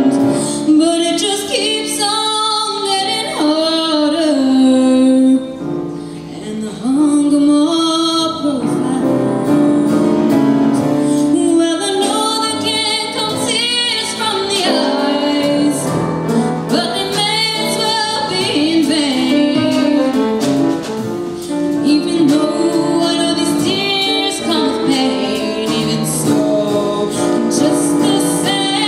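A girl sings a slow ballad solo into a microphone, with long held and gliding notes over a musical accompaniment.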